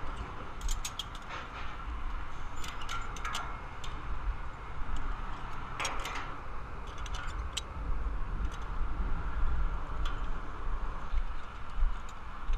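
Wind rumbling on the microphone, gusting, with scattered sharp metallic clicks and clinks of safety-lanyard hooks and hardware against the billboard's steel frame.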